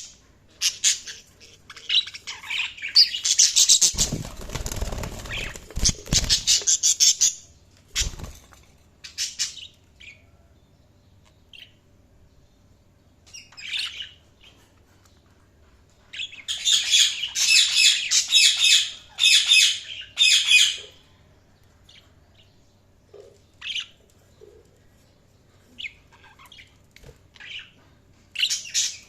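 Pet budgerigars chirping and warbling in bursts of rapid high chirps, with scattered single chirps between, and a long chattering spell about two-thirds of the way in. A rustling flutter sounds about four seconds in.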